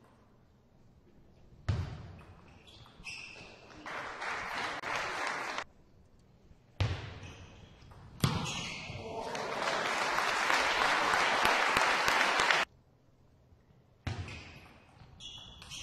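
Table tennis ball striking bats and bouncing on the table during rallies in a sports hall, with a stretch of steady crowd noise in the middle. The sound comes in several short stretches that start and stop abruptly.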